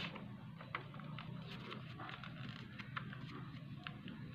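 Sheet of paper being folded and creased by hand, giving scattered soft crackles and small clicks as the fingers press and smooth the folds, over a steady low hum.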